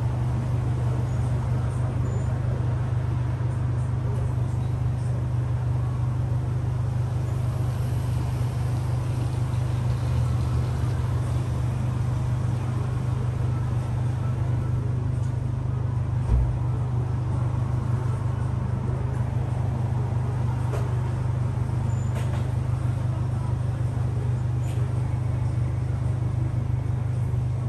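A steady, unchanging low mechanical drone with a haze of noise over it, and one brief low thump about sixteen seconds in.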